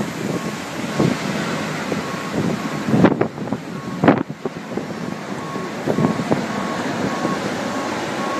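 Strong storm wind buffeting the microphone over the noise of surf, with two loud whooshes about three and four seconds in. Through it a vehicle's reversing alarm beeps steadily at one pitch.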